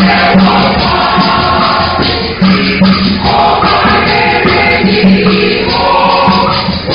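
Church choir singing with musical accompaniment, one phrase ending and the next beginning about two and a half seconds in.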